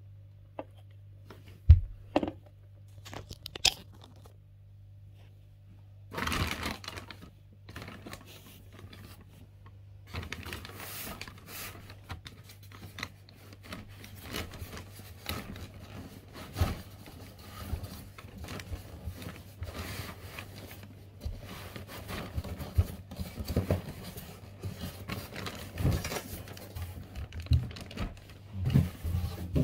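Printer packaging being handled by hand: a few sharp knocks, then, from about six seconds in, continuous rustling, crinkling and tearing of wrapping, with scattered clicks and knocks.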